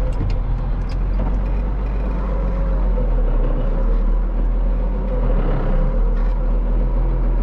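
Farm tractor's diesel engine running steadily, heard from inside the cab as a deep, even hum.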